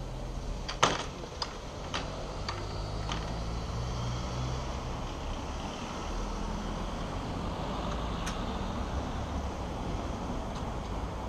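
Level crossing gates clanking as they are swung across the railway: one sharp clank about a second in, then a few lighter clicks. Cars then drive over the crossing with a steady road noise and engine hum.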